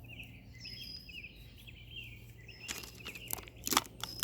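Birds chirping in the background over a steady low hum. A few short clicks and rustles come in the last second and a half.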